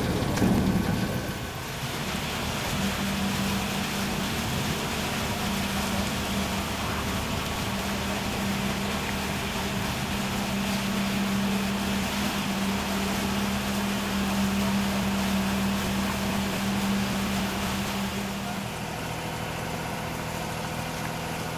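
Alpha Boats FX6 aquatic weed harvester's engine running steadily with a constant hum, after a brief falling pitch at the start. Near the end the hum shifts to a slightly lower, different tone.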